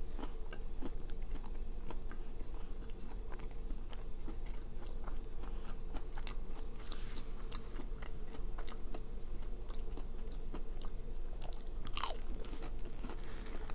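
Close-up chewing of a breaded fried mozzarella stick, with many small crunches and mouth clicks.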